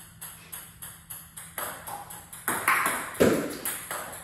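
Table tennis ball clicking in quick succession as it bounces on the table and is struck off the bat, with a louder pair of hits about three seconds in.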